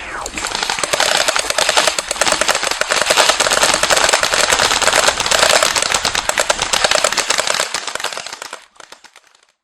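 Rapid automatic gunfire, a dense unbroken stream of shots that thins out and fades away near the end.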